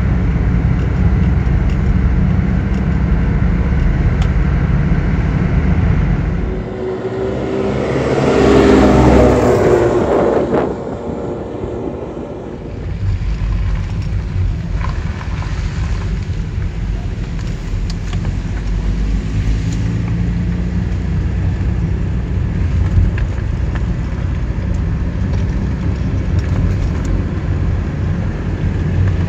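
Steady low rumble of a car on the road, heard from inside the cabin. About seven seconds in, a louder engine with a pitched drone swells for a few seconds, then drops away.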